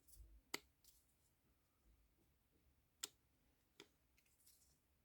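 Three faint, sharp clicks of small objects being handled: about half a second in, then twice more near three and four seconds in, with near silence between.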